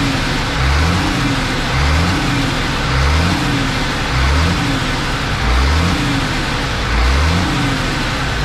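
Vehicle engine running with a regular pulse that swells and falls about once a second.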